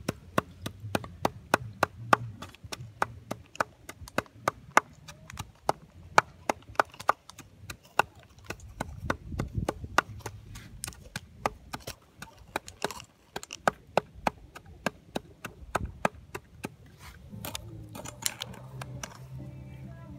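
A rapid series of sharp knocks or clicks, about three a second, that stops a few seconds before the end, followed by a low hum.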